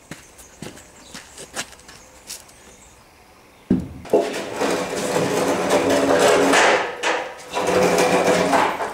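Light scattered knocks of wooden beams being handled, then, from about four seconds in, loud, sustained scraping of a long wooden beam rubbing against a concrete block wall as it is pushed up into place.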